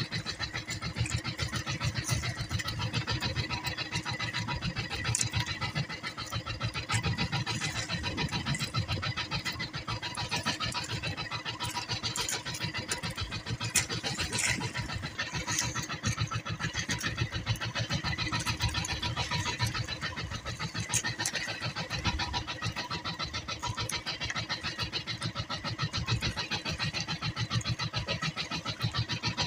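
Small outrigger boat's engine running steadily, with a fast, even chugging.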